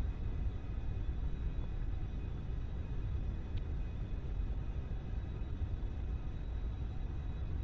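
Steady low background rumble with a faint click about three and a half seconds in.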